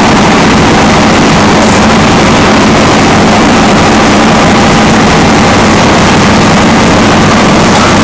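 Loud, steady engine-like drone with a constant low hum, unchanging throughout.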